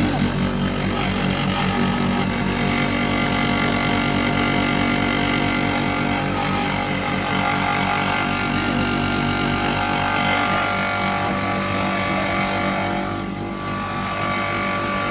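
A 5 HP single-phase, double-chamber maize grinder running steadily under its electric motor: a constant machine hum with several steady tones, dipping slightly near the end.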